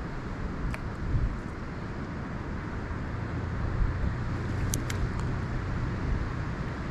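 Strong gusty wind buffeting the microphone: a steady low rumble over a rushing hiss, with a few faint clicks.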